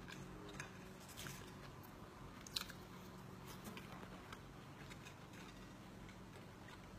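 Faint chewing and biting of a fast-food meal (burger and fries), with a few short clicks and crunches, the sharpest about two and a half seconds in, over a faint steady hum.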